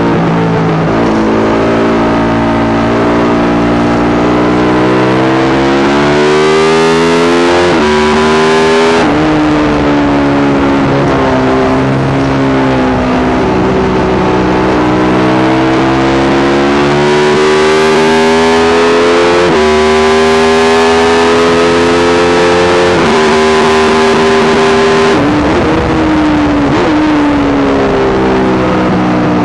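Yamaha YZ450 single-cylinder four-stroke engine in a supermono race bike running hard on track. Its pitch climbs and then drops sharply several times, as it revs up and shifts or backs off. The bike is plagued by a constant misfire that the owner has been unable to cure.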